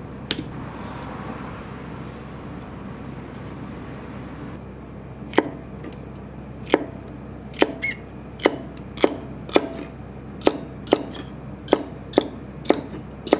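Kitchen knife slicing a celery stalk on a plastic cutting board: after a quiet stretch, sharp knocks start about five seconds in and come about twice a second, each one the blade cutting through and striking the board. A steady low hum runs underneath.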